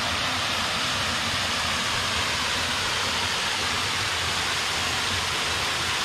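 Small waterfall spilling over a rock ledge into a creek pool: a steady rush of falling water.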